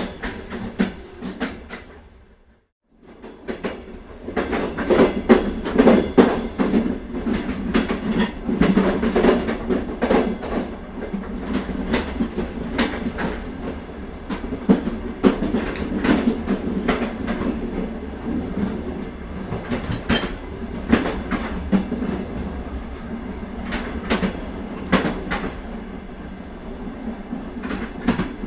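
Moving passenger train running along the track, its wheels clicking over the rail joints over a steady rumble. The sound fades out briefly about two to three seconds in, then comes back.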